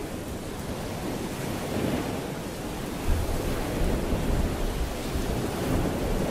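Steady rain ambience with no music. A low rumble comes in about halfway through.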